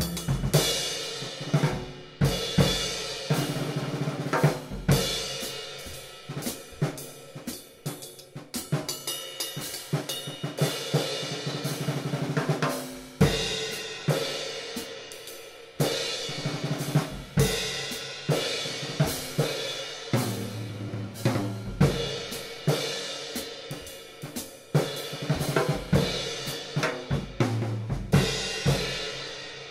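Drum kit played with hickory sticks on a 19-inch, 1516 g hand-hammered B20 bronze cymbal, with hi-hats, snare and bass drum under it. The playing stops near the end and the cymbal rings away.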